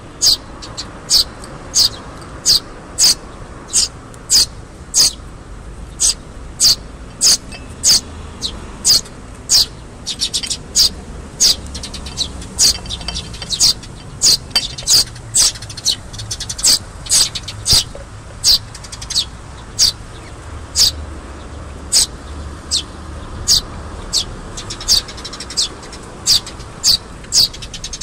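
Eurasian tree sparrow fledglings' begging chirps: short, high-pitched calls repeated steadily about twice a second, with a busier stretch of quicker chirping midway.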